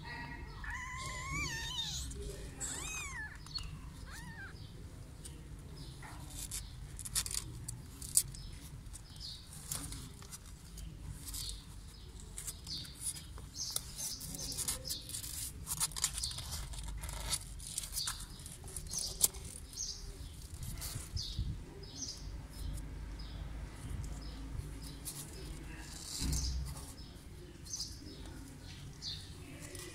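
Very young kittens mewing a few times in thin, wavering calls in the first few seconds, then many small scratches and clicks as they crawl over one another on the cardboard floor of a box.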